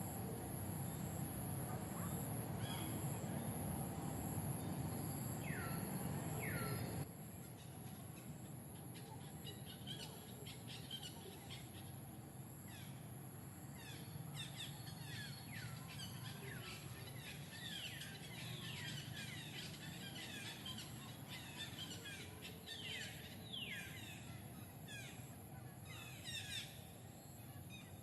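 Many short, high chirps that fall in pitch, coming in quick runs and thickening towards the end. For the first seven seconds they sit over a steady low rumble, which cuts off abruptly.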